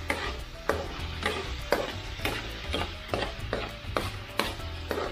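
A spatula scraping and knocking against a nonstick frying pan, about two strokes a second, as pork spare ribs, garlic, onion and tomato are stirred and sautéed in hot oil, with a steady sizzle of frying underneath.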